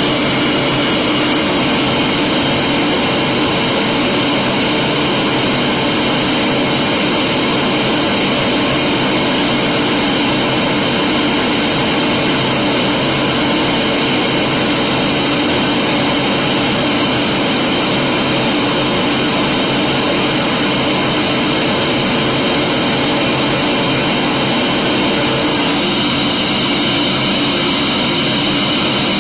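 Vacuum cleaner running steadily, a loud constant whine over a rush of air; its tone shifts a little near the end.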